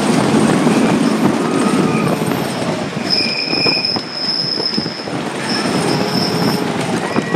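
Coney Island Cyclone wooden roller coaster train running fast along its track, the wooden track roaring under the wheels, with high wheel squeals about three seconds in and again near six seconds.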